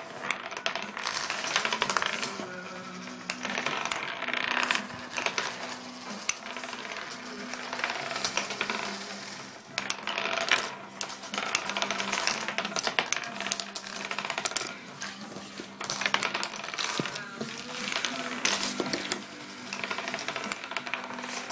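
Wooden nickels spun by finger-flicks on a wooden tabletop, whirring and rattling as they wobble down, with frequent clicks as the discs topple and knock together.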